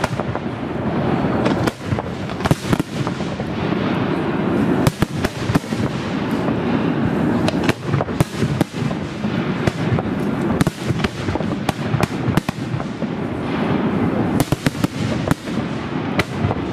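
Aerial fireworks display: a dense, irregular run of sharp shell bangs, many close together, over a steady rumble.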